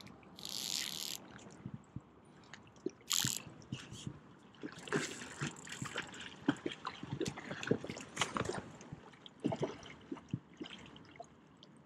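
Water splashing and trickling in shallow river water, with two short hissing rushes in the first few seconds followed by a run of irregular clicks and knocks.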